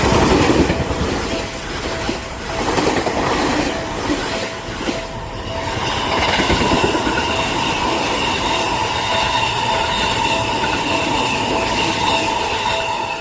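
A train passes close by. Its wheels clatter over the rail joints in repeated surges, and from about halfway in a steady high squeal from the wheels joins the rushing noise.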